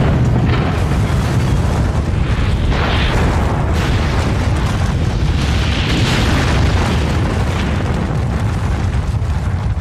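Long, loud, continuous rumbling roar of a huge explosion, the sound of an atomic bomb blast, with swells of hissing noise about three and six seconds in.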